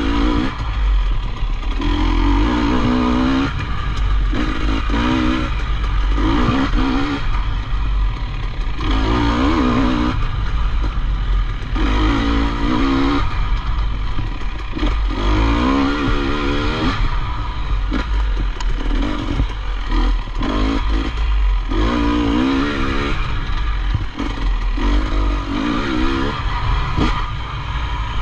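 Off-road dirt bike engine revving up and falling back every couple of seconds as the throttle is worked over rough terrain, with wind rumble on the microphone and occasional clatter from the bike.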